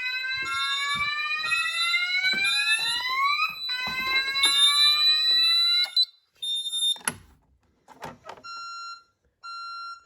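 Fire alarm sounder going off with a rising sweep tone that climbs over about three and a half seconds and then starts again, set off by a smoke detector being tested with a magnet. It cuts off suddenly about six seconds in. After that an alarm panel buzzer beeps in short, even beeps about once a second.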